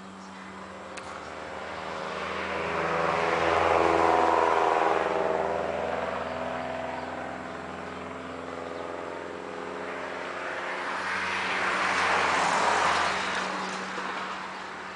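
Road traffic: two vehicles passing one after the other, each swelling up and fading away over several seconds. The first is loudest about four seconds in, the second near the end.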